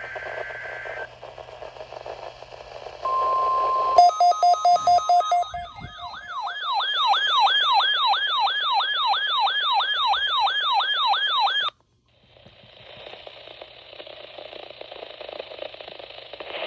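A NOAA Weather Radio warning alarm tone sounds as one steady tone for about a second. The weather alert radio receiver then sets off its own alarm: a run of rapid beeps, followed by a whooping siren tone that rises and falls about three times a second. The alarm cuts off abruptly, leaving radio hiss.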